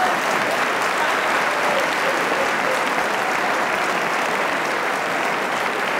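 Theatre audience applauding steadily, with laughter mixed in.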